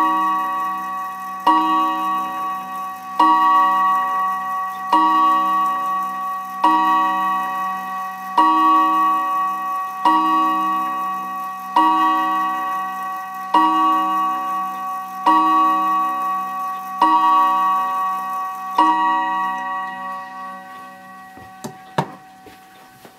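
Bravingtons Art Deco oak mantel clock striking twelve o'clock on its hour gong: one ringing note struck about every 1.7 seconds, each stroke ringing on into the next. After the last stroke the ring dies away, and a couple of light knocks come near the end as a hand handles the clock.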